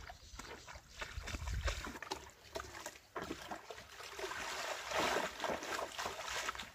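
Knocks and clatter of plastic buckets handled on a gravel stream bank, then water sloshing as a plastic container is dipped and filled in a shallow stream, and splashing as a person wades through it, loudest about five seconds in.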